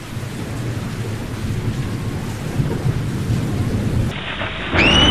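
Steady rain with a low rumble of thunder. Near the end a high whistle rises quickly in pitch and then holds.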